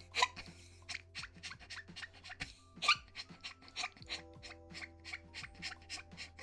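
Soft background music with held chords, under a quick, uneven series of short clicks.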